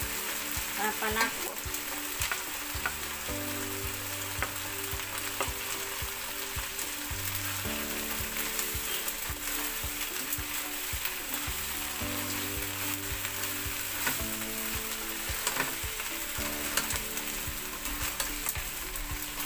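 Small crabs sizzling as they fry in a pan, stirred with a spatula, with scattered clicks and scrapes of shell against the pan.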